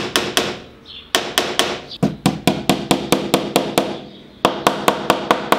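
Small hammer tapping track pins into a wooden baseboard to fix model railway flexible track: quick runs of light taps, about five a second, broken by two short pauses.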